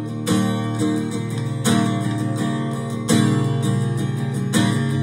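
Recorded song in an instrumental passage: acoustic guitar strumming chords, with a strong strum about every one and a half seconds.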